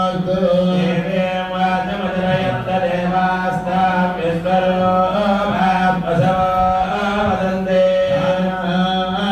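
Hindu temple priests chanting mantras in a steady, unbroken recitation into a microphone during a tulasi archana.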